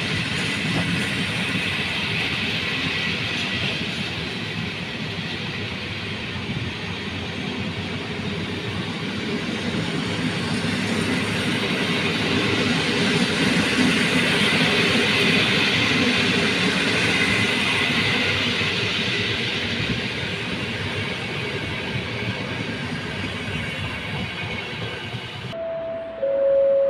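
A train running past on the rails, a steady rush of wheel and rail noise that swells in the middle and then fades a little. Near the end it cuts off abruptly, and three short falling tones follow.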